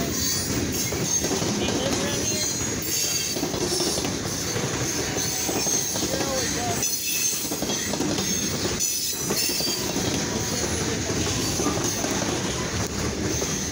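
DeQueen & Eastern freight train's covered hopper cars rolling steadily past, steel wheels clattering over the rails, with some wheel squeal.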